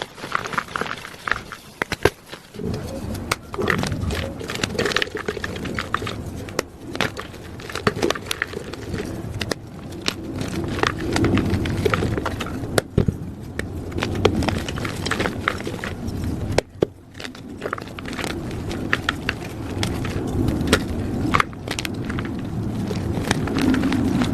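Blocks of plain gym chalk being crushed, crunching and crumbling with many sharp, irregular cracks over a denser crushing sound.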